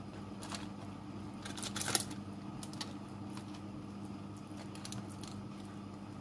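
Silicone basting brush dabbing and dragging across glazed chicken wings on crinkled aluminium foil: scattered soft foil crinkles and small taps, loudest in a cluster about two seconds in. A steady low electrical hum runs underneath.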